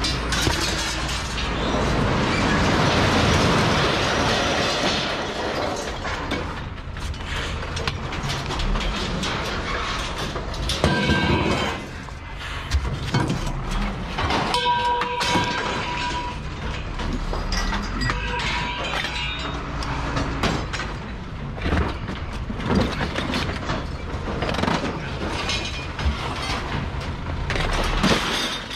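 Mixed scrap metal being thrown by hand from a trailer onto a scrap pile: repeated clattering and crashing of metal on metal, with one piece ringing briefly about fifteen seconds in.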